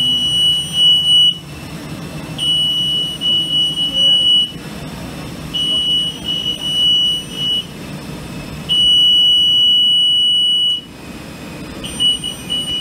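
Electronic warning buzzer in a jet bridge sounding one loud steady high tone for about two seconds, then pausing about a second, over and over, about every three seconds.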